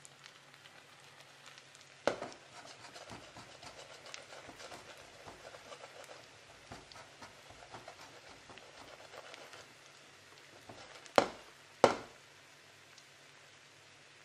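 Olive oil faintly sizzling and crackling under a potato-and-egg Spanish omelette frying in a non-stick pan. There is a knock about two seconds in and two sharp knocks close together near the end.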